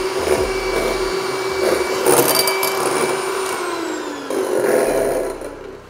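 Electric hand mixer whisking egg whites into stiff peaks in a glass bowl: a steady motor whine over the whisks churning. The pitch sags about four seconds in, and the mixer stops near the end.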